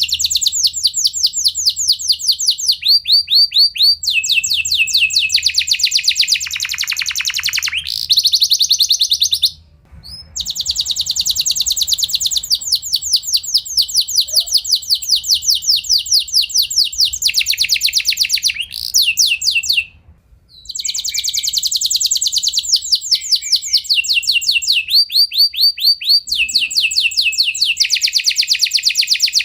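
Domestic canary singing long rolled trills: fast runs of the same sweeping note repeated many times a second, switching to a new note type every second or two. The song breaks off briefly twice.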